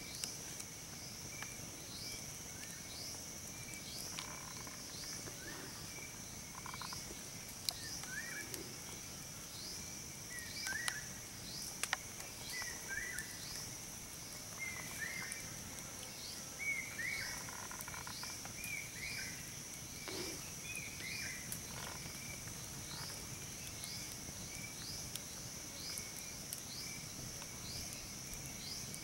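Forest insects humming steadily, with a short falling chirp repeated a little more than once a second. A bird calls in short falling notes through the middle, and a few sharp clicks stand out.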